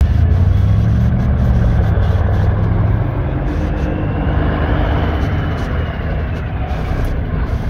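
Slow-moving traffic rolling past, dominated by the deep, steady rumble of a semi truck's diesel engine, heaviest in the first few seconds.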